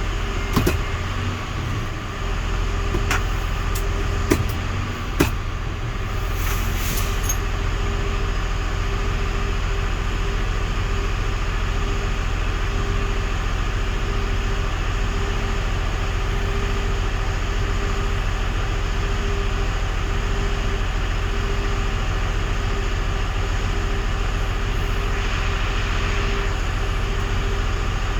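Mega Truck running steadily at idle with its transmission oil cooler fan running, working normally again on a new relay. A few sharp clicks and knocks in the first five seconds, then a short hiss.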